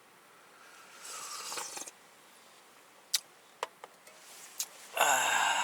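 Eating hotpot from a bowl: a soft rustle, a few light clicks of utensils, then a loud slurp near the end.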